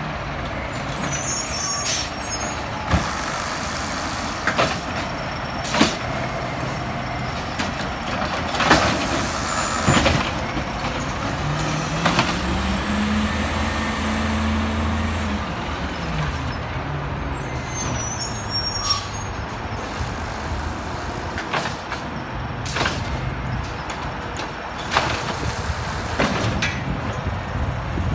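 Peterbilt 320 garbage truck's engine running at the curb. Near the middle it revs up, holds for about three seconds, then drops back, the way these trucks rev to power their hydraulics. A dozen sharp bangs and air-brake hisses come at intervals.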